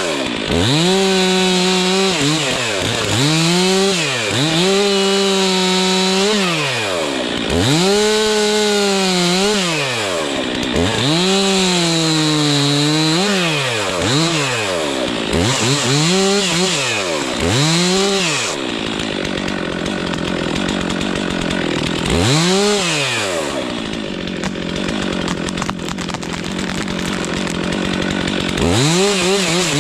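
Two-stroke chainsaw making a butt cut to free the trunk from its stump, revving up again and again and dropping in pitch as it bites into the wood. For a long stretch past the middle it runs lower and steadier with one brief rev, then revs up again near the end.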